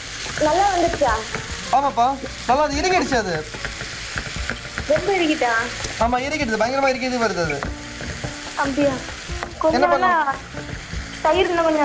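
Marinated chicken in a creamy sauce sizzling in a nonstick frying pan as it cooks through, stirred with a spatula. A louder pitched sound glides up and down over it several times.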